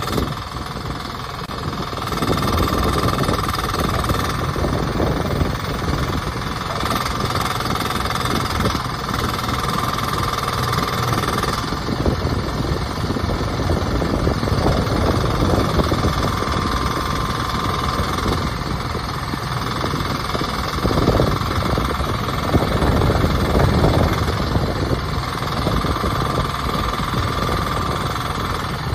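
Kubota diesel engine of a one-ton mini excavator running steadily, with a high whine that comes and goes several times.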